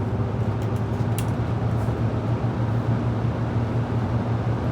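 Haier 5200 BTU window air conditioner running on low fan: a steady motor hum from its Broad Ocean fan motor under an even rush of air.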